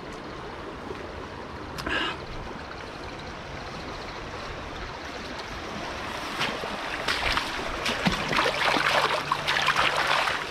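Leafy wild tomato plants rustling and crackling as they are pushed aside and picked through, with one brief rustle about two seconds in and denser, louder rustling from about six seconds on, over a steady rushing noise.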